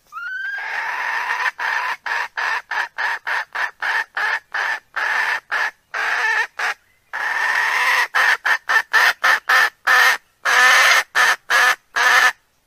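Recorded chicken calls: a short rising squawk, then a rapid run of short harsh clucks and squawks, about three or four a second, separated by clean cut silences, with a longer unbroken stretch of calling about seven seconds in.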